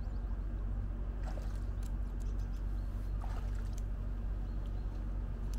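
Bare feet wading through shallow, cold lake water, with soft splashes at about a second and a half and again at about three seconds, over a steady low hum.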